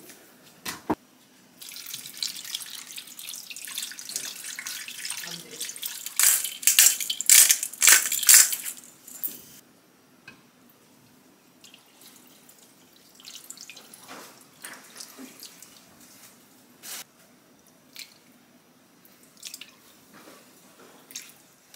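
Liquid poured from a cup into an enamel pot of pork pieces: a steady trickling pour for several seconds that turns to heavier splashing about six to nine seconds in, then stops. Later come a few fainter short pours and light clicks as seasoning sauce is spooned in.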